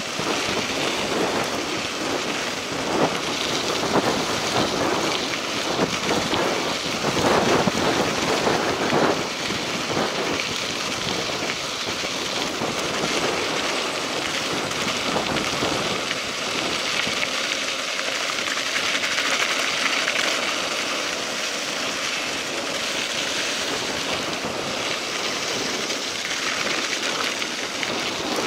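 Mountain bike tyres rolling over a gravel dirt road: a continuous crunch and rattle, rougher and louder between about three and nine seconds in.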